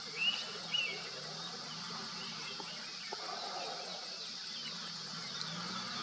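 Steady high buzz of insects with two short bird chirps about half a second apart near the start, then a few fainter scattered chirps.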